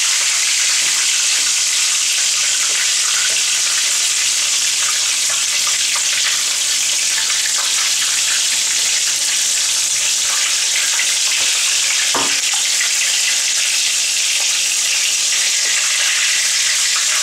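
Corn tortilla wrapped around a spicy sausage frying in hot peanut oil: a steady sizzling hiss, with one brief knock about twelve seconds in.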